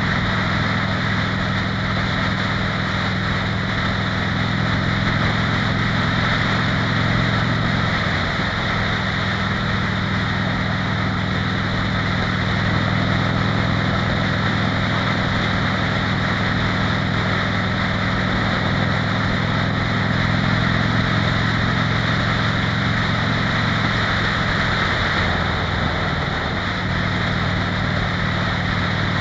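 Harley-Davidson Fat Bob's V-twin engine running under way at road speed, over a steady rush of wind and road noise. The engine note changes pitch about eight seconds in and again near the end.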